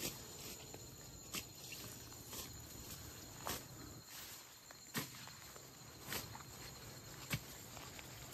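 Slow footsteps outdoors, about one step a second, each a short crunch, over a faint steady high insect chirring.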